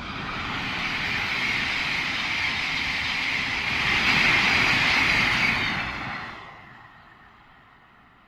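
Thameslink Class 700 electric multiple unit running through the station without stopping: a rushing wheel-and-rail noise that builds, is loudest about four to five seconds in, then fades away over the last couple of seconds.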